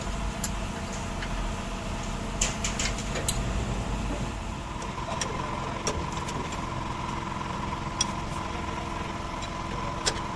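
A motor vehicle engine idling steadily, with several sharp clicks or taps at irregular moments.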